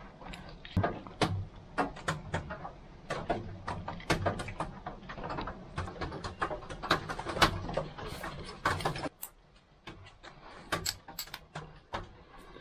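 Irregular small metallic clicks and knocks of a screwdriver, wrench and carburetor parts being handled and fitted back together on a small four-stroke generator engine that is not running. Under them is a faint low hum that stops about nine seconds in.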